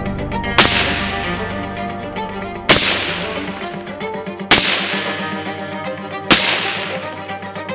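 Four suppressed rifle shots from an AR-15 fitted with a silencer, each a sharp crack with a short decaying tail, roughly two seconds apart. Background music plays under them.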